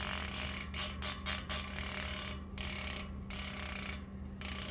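American Classic 225 hub's freehub ticking as it is spun and coasts: a quiet, fast run of pawl clicks with a few brief breaks. The sound is not terribly loud.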